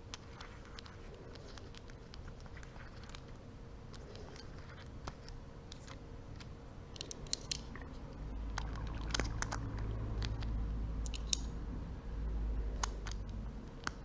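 Small travel dominoes clicking and tapping as they are set down one by one and lined up on a surface, with irregular light clicks throughout. A low rumble comes in during the second half.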